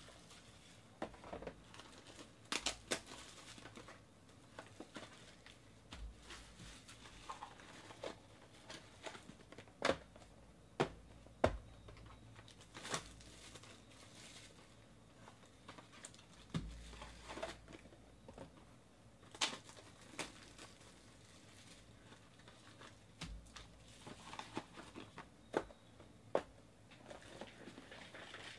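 Plastic wrap and foil trading-card packs crinkling as they are handled and unwrapped, with scattered light clicks and taps.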